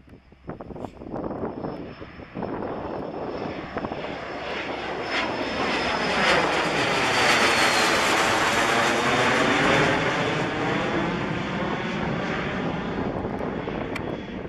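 Cessna Citation CJ4's twin turbofan engines as the jet climbs out after takeoff and passes overhead. The jet noise swells to its loudest about halfway through, with a high whine sliding down in pitch as it goes by, then slowly fades.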